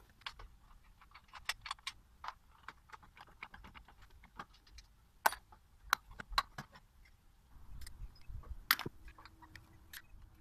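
Irregular metallic clicks and taps as a motorcycle's rear brake caliper and its bolts are handled and worked loose, with a few sharper knocks about halfway through and near the end.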